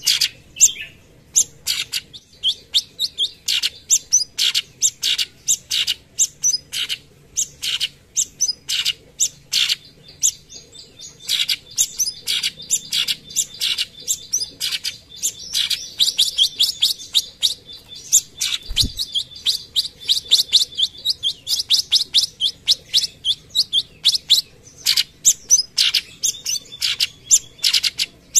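Orange-bellied leafbird (cucak cungkok) singing a long string of short, sharp chirping notes, the "tembakan" (shot) phrases. The notes come spaced out at first and run together into a fast, even series over the second half.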